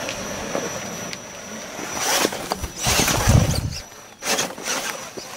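Electric motor of a 2.2-class RC rock crawler whirring in short bursts, with its tyres and chassis scraping and knocking against rock.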